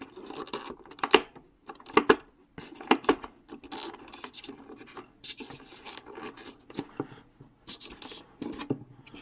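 Styrofoam packing insert scraping and rubbing as hands pry small plastic toy pieces out of it: irregular scrapes with sharper strokes about one, two and three seconds in.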